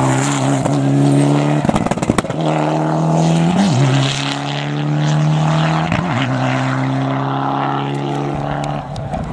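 Mitsubishi Lancer Evolution rally car's turbocharged four-cylinder engine pulling hard at high revs, with brief breaks at gear changes about two, three and a half and six seconds in, then fading as the car drives away.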